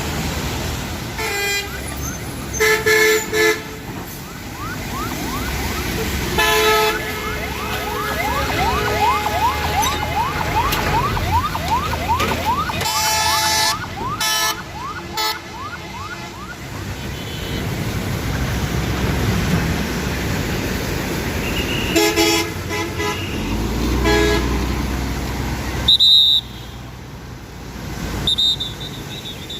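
Vehicle horns honking in short blasts again and again, over steady road and engine noise. A fast-repeating warbling tone runs for several seconds in the middle.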